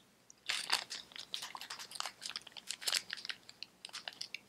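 A clear plastic parts bag crinkling and crackling as it is opened and handled, in irregular crackles starting about half a second in.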